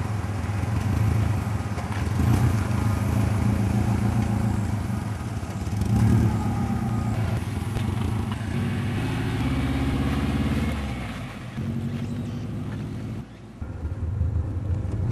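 Exhaust of a Subaru Impreza WRX STI Version II's turbocharged flat-four through an N1 muffler, the engine running and revving with its pitch stepping up and down. The sound drops away briefly twice near the end.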